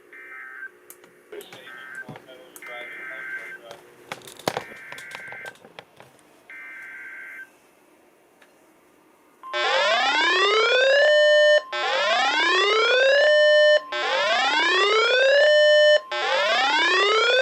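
Emergency Alert System tones from a weather radio: a run of short buzzy SAME data bursts, then a steady alert tone near 1 kHz with an electronic alarm over it that rises in pitch and holds, four times about two seconds apart. The alarm is the loudest sound.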